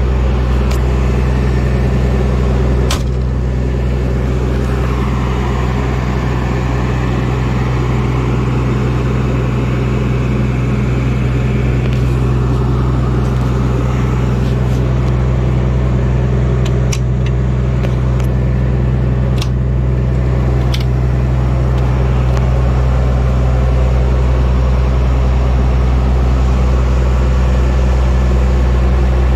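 A fire pumper truck's Cummins diesel engine idling steadily, with a few short clicks and taps over it.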